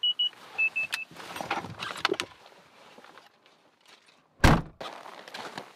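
Gear being handled and rustled in a car's boot, with a few short, high electronic beeps right at the start. About four and a half seconds in, the car's tailgate is slammed shut with one loud thud.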